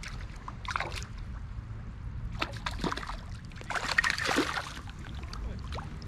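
River water splashing and sloshing close by, with scattered small splashes and one louder splash about four seconds in, as a small trout is brought in on a tenkara line.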